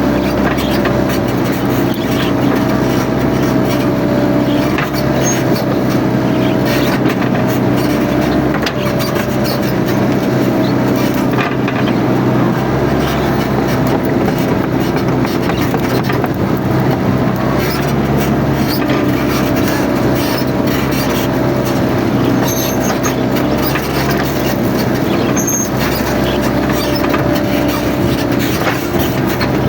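Mini excavator's diesel engine running steadily under load, with a wavering whine above it and scattered short clicks and cracks.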